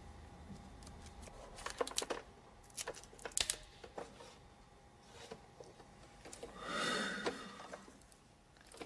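Sharp mechanical clicks of a tape recorder's piano-key controls being pressed, in two clusters, then about six and a half seconds in a brief whooshing hiss with a faint whine that swells and fades, meant as a wind sound.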